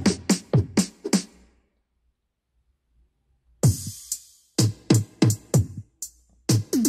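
Isolated drum-machine track of a K-pop song: deep electronic kicks that drop in pitch, with crisp snare and hi-hat hits. The beat stops for about two seconds after the first second and a half, then comes back in.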